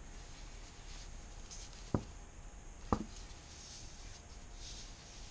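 Two sharp taps about a second apart over a faint, steady room hum, while resin is slowly squeezed in a thin stream from a plastic squeeze bottle into a plastic mixing cup on a scale.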